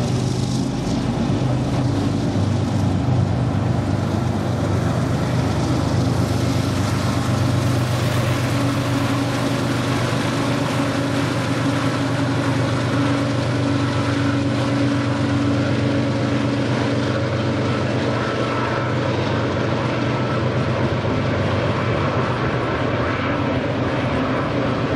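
Freight train passing, led by two BNSF diesel locomotives whose engines run at a steady pitch, with the rolling noise of the double-stack container cars throughout.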